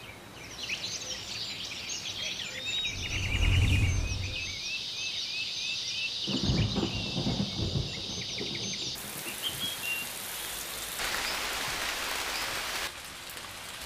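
A dense chorus of forest birds chirping and trilling, with a deep rumble about four seconds in and another shortly after six seconds. About nine seconds in the birds give way to the steady hiss of rain falling on foliage, which grows heavier and then eases near the end.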